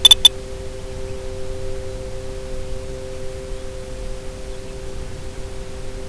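Steady electronic hum in two pitches over a low hiss, as heard on an FPV flight recording's audio. A rapid run of sharp, high beeps ends just after the start.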